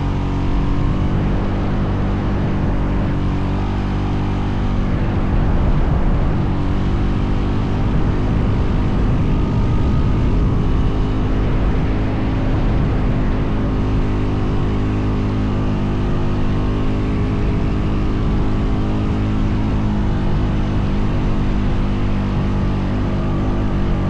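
Honda Foreman 520 ATV's single-cylinder engine running steadily under load while towing a disabled ATV through sand.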